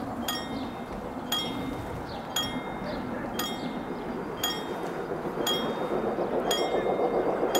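Level-crossing warning bell striking about once a second, each stroke ringing briefly. Under it a low rumble swells near the end as the train approaches.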